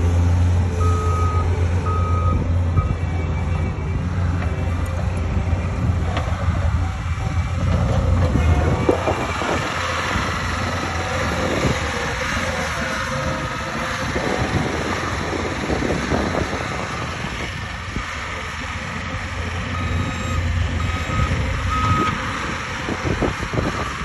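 Bobcat compact track loader's diesel engine running steadily, its reversing alarm sounding three short beeps near the start and three more near the end. In the middle comes a stretch of rattling and knocking as the loader's tracks and bucket work the dirt.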